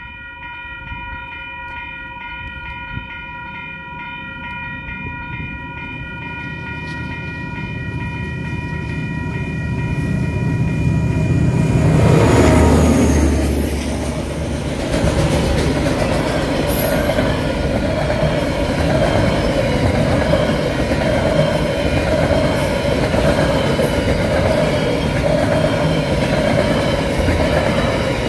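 Level-crossing alarm bells ringing steadily while a KiwiRail container freight train approaches, growing louder. About twelve seconds in the locomotive passes with a heavy low rumble, the loudest moment. A long rake of container wagons then rolls by with a continuous rattling roar of wheels on rail and scattered clicks.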